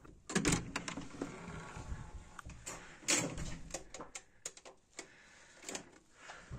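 Irregular knocks, clicks and rustles of a hotel room door being handled and pushed open as someone walks through. The loudest knocks come about half a second in and about three seconds in.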